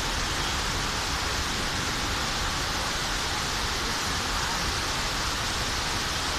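Steady rush of the 9/11 Memorial reflecting pool's waterfalls: water cascading down the pool's walls into the basin.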